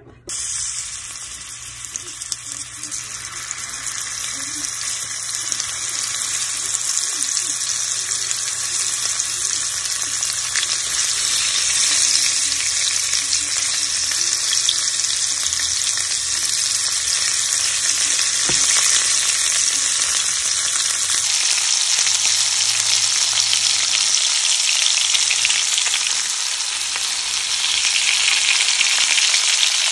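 Seasoned shrimp sizzling as they fry in hot oil in a frying pan. The sizzle starts suddenly as the shrimp go into the pan, grows louder over the first few seconds, then holds steady.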